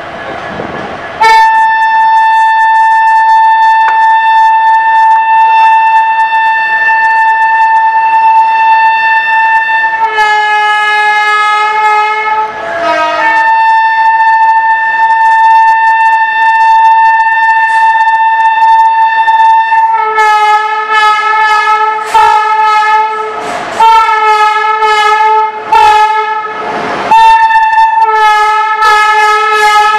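WAP-7 electric locomotive's air horn sounding as musical honking on departure. It starts suddenly about a second in with one long steady note, shifts to a lower, two-note chord around ten seconds in, and returns to the single note after a brief break. From about two-thirds of the way through it plays a string of blasts with short gaps, switching between the notes.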